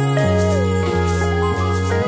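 Background music: a gentle instrumental track with held notes over a slow, stepping bass line.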